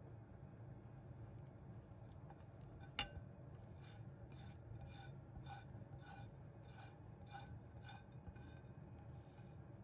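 Soft, repeated scraping strokes, about two a second, as grated garlic is scraped off a metal dish into a glass bowl, with one sharper click about three seconds in.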